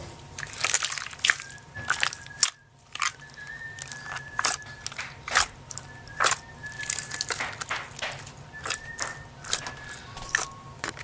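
Very watery, jiggly slime being squeezed and played with by hand, giving irregular wet clicks, pops and crackles.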